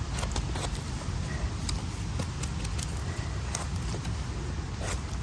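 A steady low rumble with scattered light crackles and snaps.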